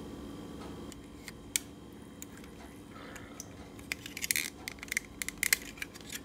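Small metal clicks and taps from hands working screw terminals on a plastic computer mouse shell and handling the shell. The clicks come scattered, with a quick cluster about four to five and a half seconds in.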